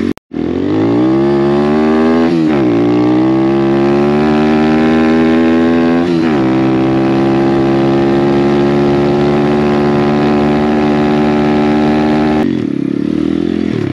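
Apollo RFZ 125cc dirt bike's four-stroke single engine accelerating hard: the revs climb, drop with an upshift about two seconds in, climb again and drop with another upshift about six seconds in, then hold steady at high revs. The engine note falls away suddenly near the end.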